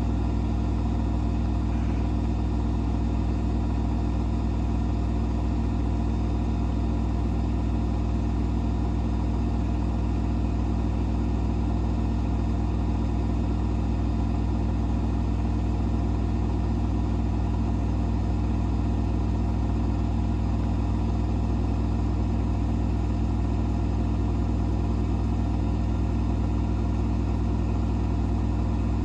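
Hoover H-Wash 500 washing machine in its final spin at 1400 rpm: a steady drum and motor hum with strong low tones, holding one pitch with no speeding up or slowing down.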